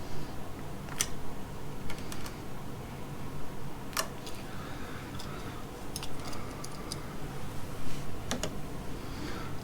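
Scattered sharp clicks and snips of hand tools working copper electrical wire, as the wire is trimmed and stripped for a 3-way wall switch.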